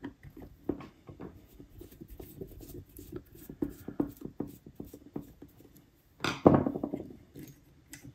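Light, irregular clicking and scratching of a small screwdriver and tiny metal and plastic parts being worked on a bench, as screws are taken out of an HO-scale locomotive motor. A louder knock or rustle comes about six and a half seconds in.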